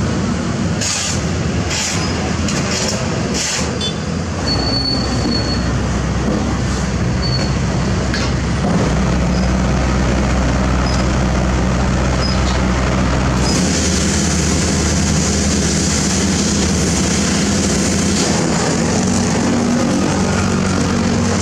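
Heavy diesel road-paving machinery running steadily, with metal clanks in the first few seconds and brief high squeals a little later. A steady hiss joins in about halfway through.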